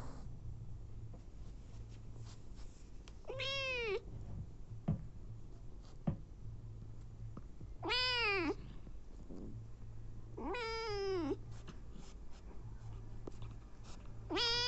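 A cat meowing four times, a few seconds apart, each meow drawn out and rising then falling in pitch. The last meow begins just before the end.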